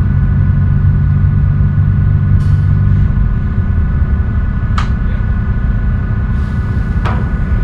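Tugboat diesel engines running with a steady low rumble and a faint steady whine above it. The engine note is heavier for the first three seconds, then eases. Two short sharp clicks come about five and seven seconds in.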